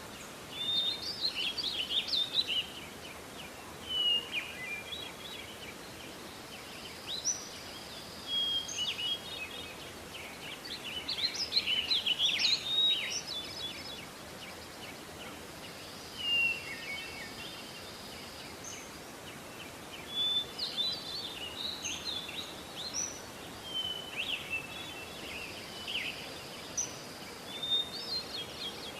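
Morning birdsong: songbirds chirping and singing in short, high phrases every few seconds over a steady outdoor background hiss.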